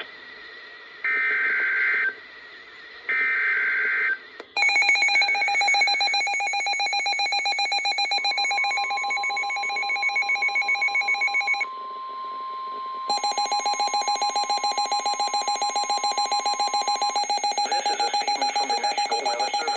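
Emergency Alert System tones. Two short bursts of digital data header come about one and three seconds in, then a loud pulsing, buzzing attention alarm starts. The alarm breaks off briefly about twelve seconds in and resumes, and a steady higher tone runs under it from about eight to seventeen seconds.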